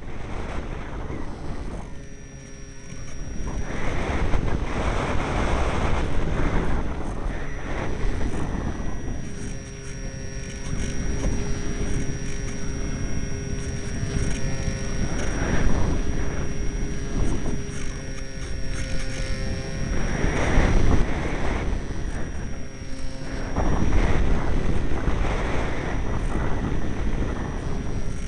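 Strong wind buffeting the microphone in gusts that swell and ease every few seconds, with a faint steady high whine underneath.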